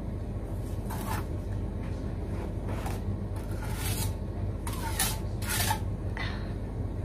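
A steel bricklaying trowel scraping mortar against brick in a string of short, separate strokes, as mortar is worked into the joints of new brickwork. A steady low hum runs underneath.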